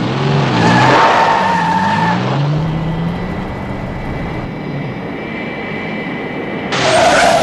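Engine sound effect: a low running tone that wavers and glides in pitch over the first few seconds, with a steady high whine behind it, then a loud rushing blast near the end.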